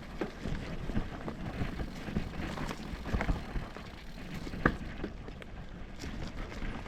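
Mountain bike rolling over a rough, rocky trail, with wind buffeting the microphone and a steady scatter of small clicks and rattles from the bike. There is one sharp knock a little past halfway.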